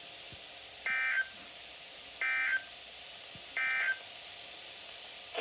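Three short, identical bursts of Emergency Alert System SAME digital data tones, about a second and a half apart, over a steady hiss: the end-of-message code that closes the Special Marine Warning broadcast.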